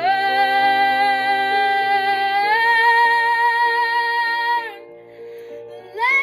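A woman singing a long held note with slight vibrato over a backing accompaniment. The note steps up in pitch about two and a half seconds in and breaks off near five seconds. After a brief stretch of accompaniment alone, a new sung phrase begins near the end.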